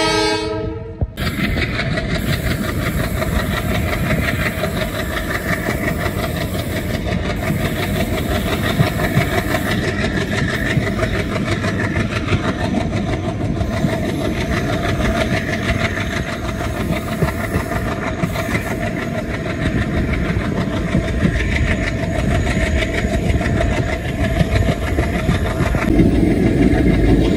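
Diesel-hauled passenger train running at speed, heard from an open coach door: steady noise of wheels on rails and rushing wind. The ALCO diesel locomotive's horn ends about a second in, and the running noise grows louder near the end.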